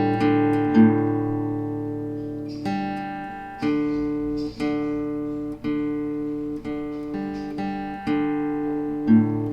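Background music: acoustic guitar picking notes and chords, about one a second, each ringing on and fading.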